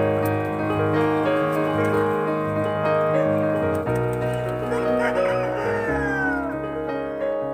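Piano background music over a flock of chickens; a rooster crows about five seconds in, its call falling in pitch at the end.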